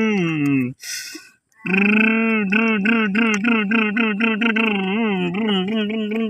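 A person's voice imitating a truck engine. A steady drone glides down in pitch and stops, and after a quick breath a new drone starts that wavers about three times a second, like an engine labouring.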